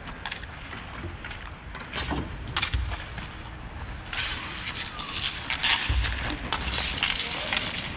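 Roller hockey in play: sharp clacks and knocks of sticks and puck, and the hiss of inline skate wheels on the rink surface, growing busier about halfway through, with a couple of low thumps.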